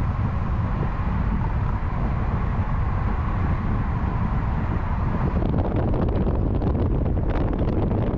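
Wind buffeting the microphone over a steady low rumble. About five seconds in the buffeting turns rough and crackly.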